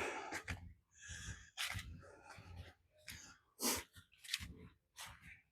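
A hiker's footsteps on a dirt trail, short scuffing steps about two a second.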